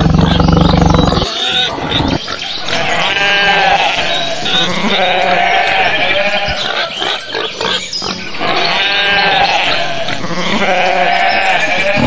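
A low roar cuts off about a second in, then a sheep bleats four times, each bleat long and quavering.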